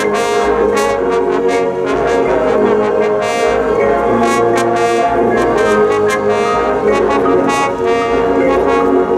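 Marching band playing loudly: brass section sounding sustained chords over drums, with cymbal crashes struck again and again.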